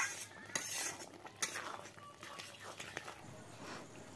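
Metal spatula scraping and clinking against a wok (kadai) as a thick curry is stirred, with a few sharp strokes in the first second and a half, then fainter.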